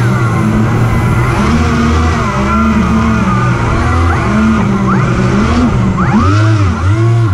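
RC hovercraft running: a steady hum from its lift fan under the whine of two electric thrust motors spinning Master Airscrew 11x10 propellers, the pitch repeatedly rising and falling as the throttles are worked.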